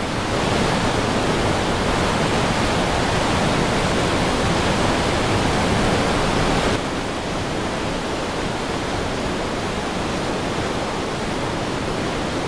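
Rushing white water of river rapids, a steady, loud rush that drops a little in level about seven seconds in.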